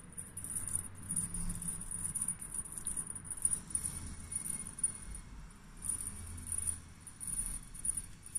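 Light, intermittent jingling and rattling of a cat wand toy as a kitten bats at it, over soft rustling and handling noise.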